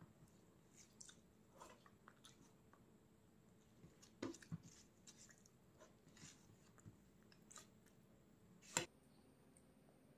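Faint, close-up sounds of a person chewing food: soft wet smacks and small crunches at irregular intervals, with one sharper click near the end.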